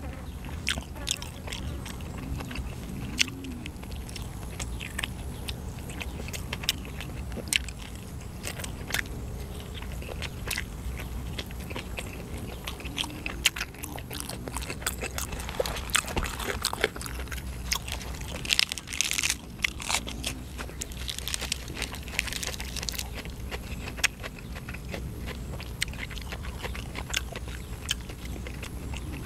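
Close-miked mouth sounds of a person chewing grilled chicken: many short wet clicks and smacks, with a few longer crunchy stretches past the middle.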